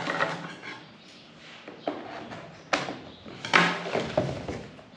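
A cardboard gift box being handled and opened on a wooden desk: scraping and rustling of the box, with two sharp knocks about three and three and a half seconds in, the second the loudest.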